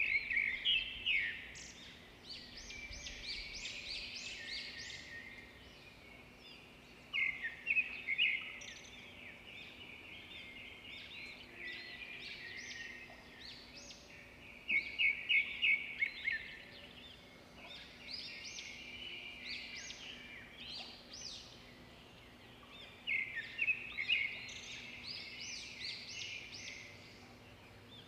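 Songbirds singing: bursts of rapid, high chirping notes come about every seven to eight seconds, with softer twittering between them.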